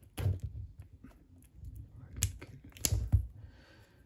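Small cardboard card boxes being handled on a table: a few sharp clicks and taps, the loudest about three seconds in, followed by a soft rustle.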